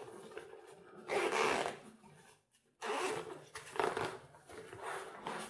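Zipper on a LEO fishing bag's front pocket being pulled open in several short strokes, with the fabric rustling under the hands.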